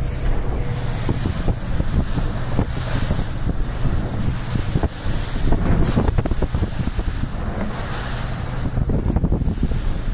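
Strong wind buffeting the microphone over the rush of waves and spray breaking against a motor boat's hull as it drives through storm chop, with the boat's engine running underneath.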